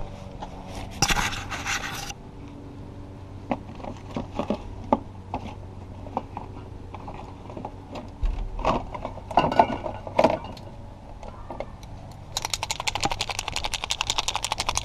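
Hands rummaging through plastic parts bins on a metal shelf: a scrape about a second in, then scattered knocks and clicks of plastic and tools being moved. Near the end a marker is shaken hard, rattling fast and evenly, about ten strokes a second.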